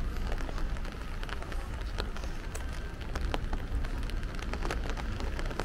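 Rain falling on a wet tiled promenade: a steady patter with many scattered sharp drop ticks, over a steady low rumble.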